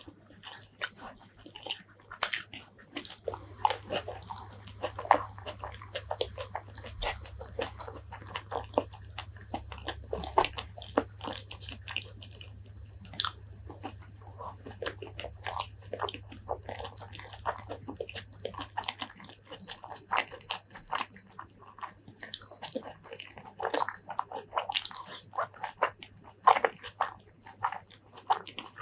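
Close-miked eating sounds: wet chewing of bites of soft green eggplant in chili paste and mouthfuls of rice, with frequent clicks from the mouth and lips.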